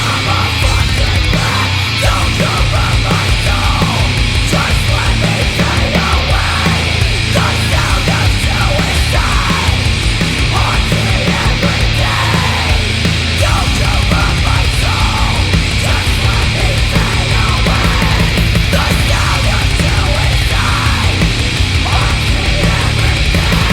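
Heavy metal song playing loud and dense, with fast, driving drums under the full band.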